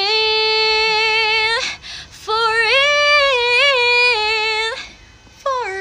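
A young woman singing solo without accompaniment: a long held note with light vibrato, then after a short breath a second phrase that steps up and down in pitch. She starts a new phrase near the end.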